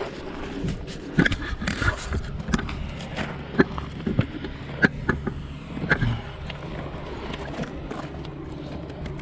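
Off-road vehicle engine running steadily at low revs, with a string of short sharp knocks and clicks over the first six seconds or so.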